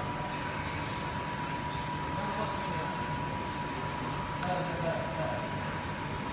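Steady low machine hum with a constant thin high whine, a few faint clicks and distant voices.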